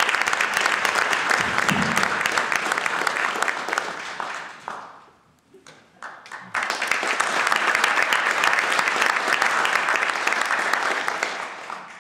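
Audience applauding in two rounds: the first dies away about five seconds in, a few scattered claps follow, and a second round starts about a second and a half later and fades out near the end.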